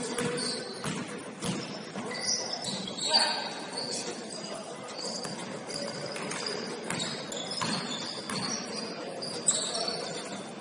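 Basketball game sounds: the ball bouncing on the court floor and short high-pitched sneaker squeaks scattered throughout, with indistinct voices in the background.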